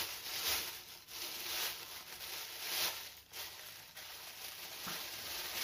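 Thin clear plastic bag crinkling and rustling in uneven crackles as a pair of binoculars is handled and unwrapped from it.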